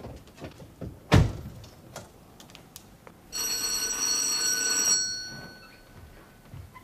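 Electric doorbell ringing continuously for just under two seconds, then stopping. About a second in there is a single heavy thud.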